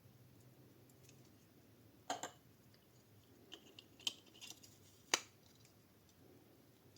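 Handling noise: a few short clicks and rustles, around two, four and five seconds in, the last one the loudest.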